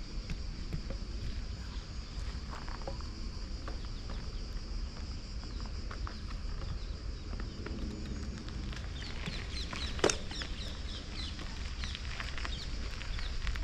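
Small birds chirping in quick short calls, thickest in the second half, over a steady low rumble, with one sharp click about ten seconds in.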